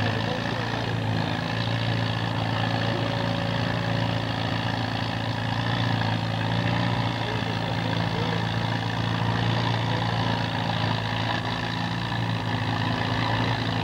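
Antique farm tractor engines idling steadily.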